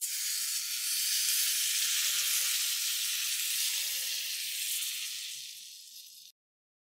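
Pudding sizzling on the hot plate of a waffle iron: a steady hiss that slowly fades and cuts off suddenly near the end.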